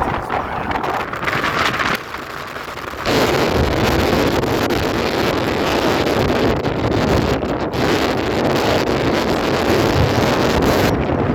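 Strong wind buffeting the microphone, a rough rushing noise that jumps louder about three seconds in.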